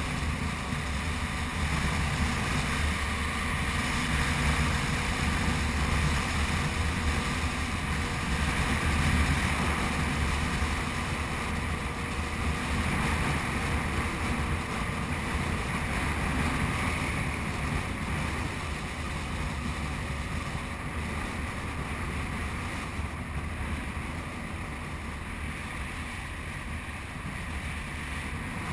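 A motorcycle engine running at road speed, with wind rushing over the bike-mounted camera's microphone: a steady low drone and rush that gets a little quieter in the last third of the ride.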